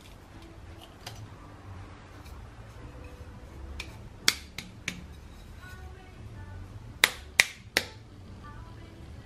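Six sharp clicks in two quick groups of three, about four seconds in and again about seven seconds in, as a plastic oyster sauce bottle is handled upside down and squeezed over a bowl.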